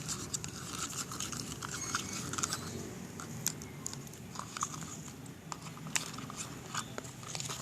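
Homemade glue slime being stirred with a spoon in a container as the activator sets it into a clump: irregular sticky clicks.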